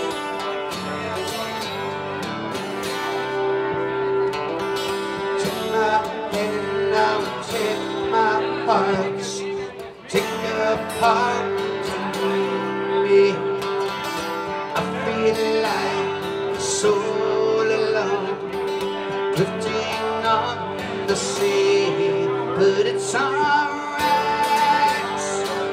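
Live solo performance: an acoustic guitar strummed steadily, with a man's singing voice coming in about six seconds in.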